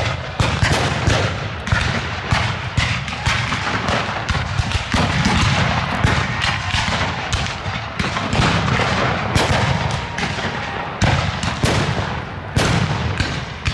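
Black-powder muskets firing blanks in a re-enacted Civil War battle: many shots cracking irregularly and overlapping, with a few louder reports standing out, one near the end.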